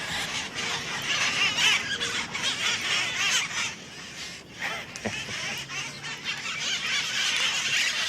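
A flock of cherry-headed conures screeching and chattering, many harsh calls overlapping, with a brief lull about halfway through.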